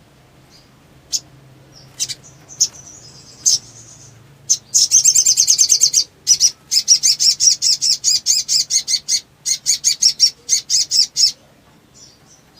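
A sogon (sogok ontong), a small sunbird-family songbird, singing excitedly in high, sharp notes. A few single chips come first, then a fast trill about halfway in, then a long run of rapid repeated notes that stops about a second before the end.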